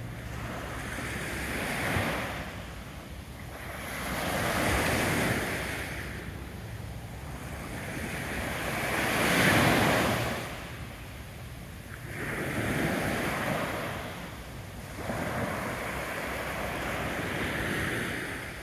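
Small waves on a calm sea breaking and washing up a sandy beach, swelling and fading about five times, the biggest surge about halfway through.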